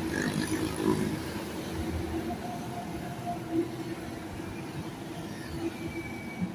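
Street ambience of road traffic: a steady hum of vehicles on a highway, with a couple of brief knocks.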